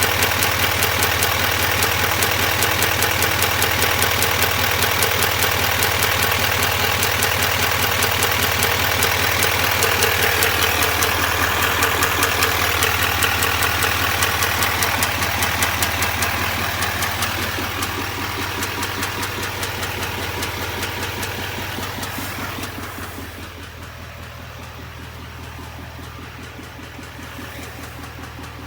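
2021 Duramax L5P 6.6-litre V8 turbodiesel idling, with a fast, even ticking running through it. It grows quieter in the last third.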